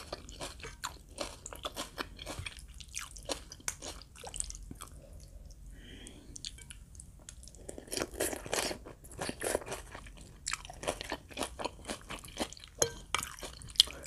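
Close-up eating sounds: crunchy chewing with wet clicks and crackles, and about eight seconds in, a louder slurp of rice noodles being drawn into the mouth.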